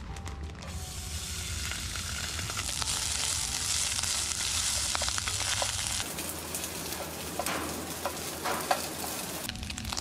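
Fried rice sizzling in hot oil in a frying pan as it is stir-fried, with a steady frying hiss and, between about seven and nine seconds in, scattered clicks of the stirring against the pan.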